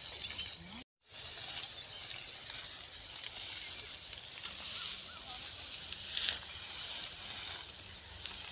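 Cut wheat stalks rustling and crackling as they are scooped up in armfuls and piled. The sound cuts out completely for a moment about a second in.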